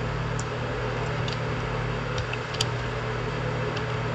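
Steady low electrical hum under a background hiss, with a few faint, short clicks of keyboard keys being pressed.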